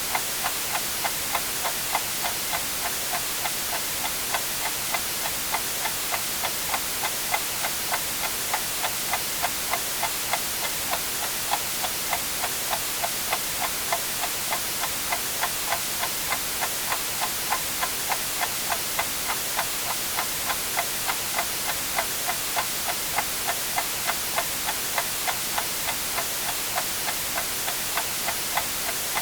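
A clock ticking steadily, about two ticks a second, over a constant white-noise hiss.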